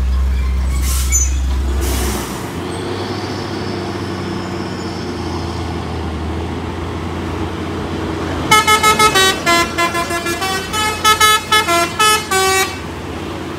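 Heavy truck engine running low and steady, its drone dropping about two seconds in, while the truck struggles on the climb. Near the end, a rapid run of short multi-tone horn blasts at shifting pitches lasts about four seconds.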